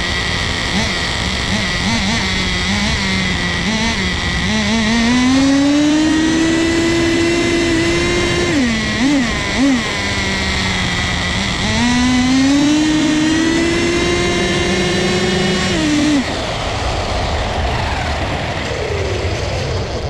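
Nitro RC car's small glow-fuel engine, fitted with a tiny turbo kit, running close to an onboard microphone. It runs at low revs, then twice rises to full throttle and holds there for a few seconds, with a couple of short blips in between. At full throttle it sounds to the owner like it is bogging out, which he suspects is too much fuel.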